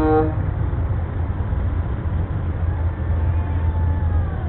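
Large parade truck's engine running steadily as it rolls past, with a horn blast cut off just after the start.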